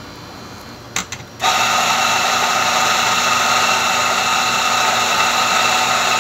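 Electric espresso grinder grinding coffee into a portafilter. A few clicks come about a second in, then the motor starts and runs with a steady, high whine.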